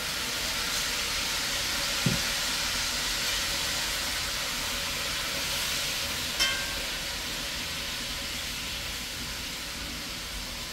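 Chicken pieces sizzling hard in hot oil in an aluminium pot as they go in and are stirred, the hiss swelling in the first few seconds and slowly easing. A knock about two seconds in and a short ringing metal clank about six seconds in.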